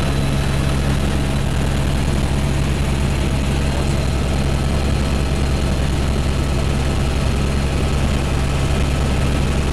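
Helicopter engine and rotor noise: a loud, steady drone with a strong low hum and a faint high whine.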